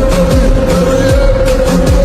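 Background song with singing over a steady electronic beat, its bass hits sweeping downward in pitch about twice a second.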